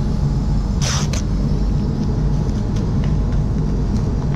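Steady low rumble of a paint spray booth's ventilation fans, with a short double burst of hissing about a second in.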